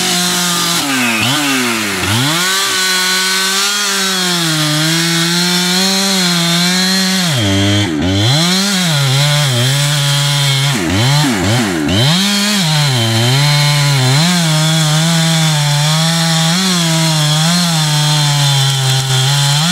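Two-stroke chainsaw cutting into the base of a standing tree to fell it, the engine running steadily under load in the cut. Its pitch drops and climbs back a few times, about two seconds in, near eight seconds and again around eleven to twelve seconds, as the throttle is eased and opened again.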